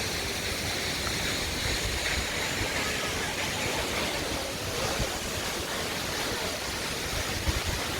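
Steady rush of a waterfall, an even noise of falling water without a break.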